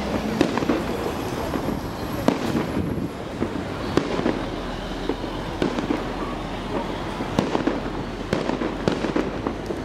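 Aerial firework shells bursting overhead: a continuous run of sharp, irregular bangs and pops, several a second at times.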